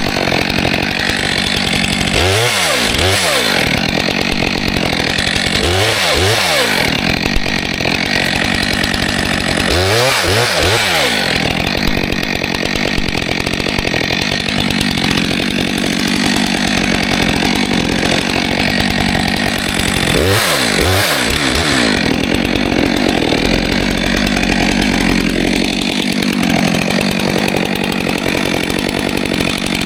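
Stihl 462C two-stroke chainsaw running hard while cutting wood. Its engine pitch drops and climbs back about four times as the throttle is eased and squeezed again.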